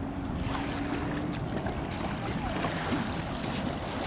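Steady outdoor rumble of wind buffeting the microphone by the river, with a faint steady hum through the first second and faint voices in the background.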